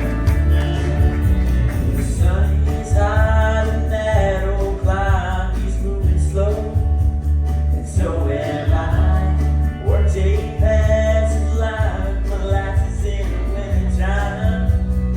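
Amplified live music from a stage show: a singer performing over a band, with a heavy, steady bass line.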